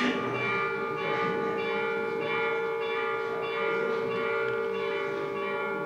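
Church bells ringing, struck over and over about twice a second, each strike ringing on into the next.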